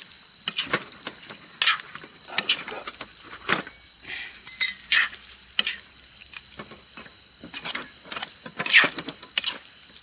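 Scattered short knocks, clicks and scrapes of metal cookware and a portable gas stove being handled, over a steady high-pitched hiss.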